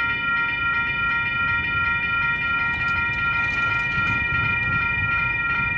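Railroad grade crossing bell ringing steadily, about three strikes a second, as the crossing gates lower: the crossing signal has been activated by an approaching train.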